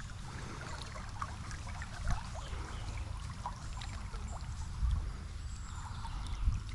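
River water trickling and lightly splashing at close range, with small scattered splashes over a low steady rumble.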